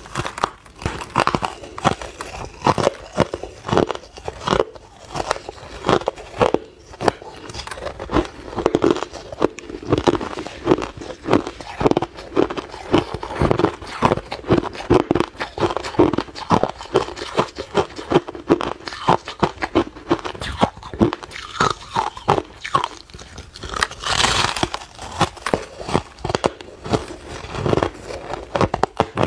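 A person biting and chewing ice, with dense, irregular crunches and cracks throughout and a louder, hissier crunch a little after two-thirds of the way through.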